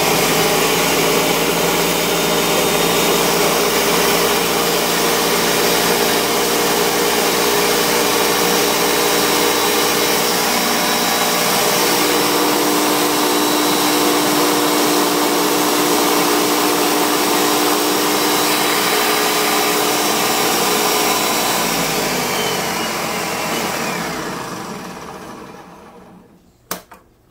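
Countertop blender running steadily, puréeing fried chiles and green tomatoes into salsa. The motor is switched off a few seconds before the end and spins down, followed by a couple of clicks as the lid is handled.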